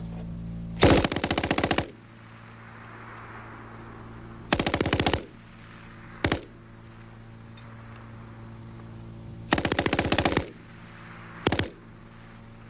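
German MG 34 belt-fed machine gun firing five bursts of rapid automatic fire: three bursts of roughly a second or less and two very short ones. A steady low hum runs between the bursts.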